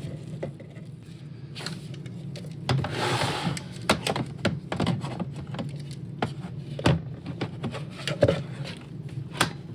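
Hands handling the plastic parts of an iRobot Roomba being cleaned: a string of small irregular clicks and taps with brief rubbing scrapes in between, over a steady low hum.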